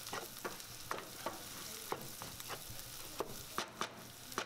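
Minced meat frying with a steady sizzle while a wooden spoon stirs it, scraping and knocking against the pan in irregular sharp clicks.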